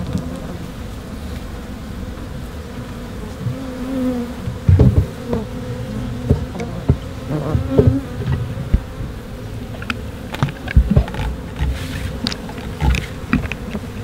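African honey bees buzzing steadily around exposed comb, the hum wavering in pitch. From about five seconds in, a run of sharp knocks and clicks comes from the comb and wooden frame being handled.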